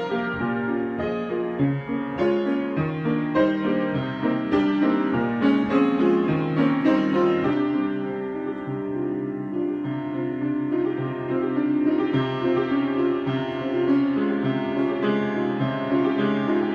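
Solo piano improvisation: chords and melody notes struck at a moderate pace, settling from about eight seconds in into softer, longer-held chords.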